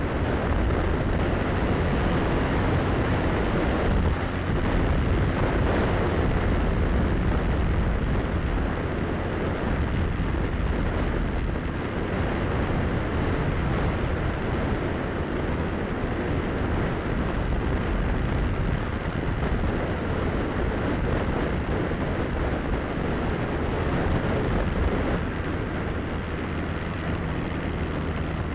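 Honda Rebel motorcycle running steadily at road speed, its low engine rumble mixed with heavy wind rush on the microphone and road noise. The level drops a little near the end.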